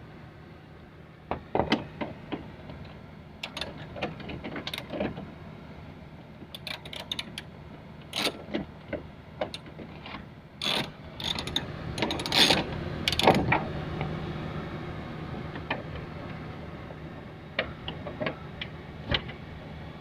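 Ratchet wrench with a 10 mm socket clicking in short bursts as a bolt is worked loose, with scattered knocks of the tool between them.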